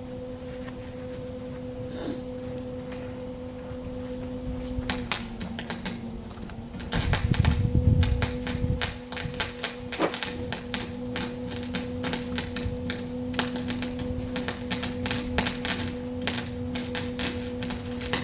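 Electric welder's arc crackling in fast irregular clicks while welding steel cattle-panel wire, over a steady electrical hum. The crackling starts about five seconds in, with a heavier low rumble a couple of seconds later.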